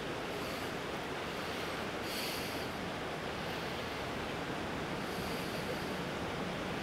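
A stream rushing steadily, an even wash of water noise.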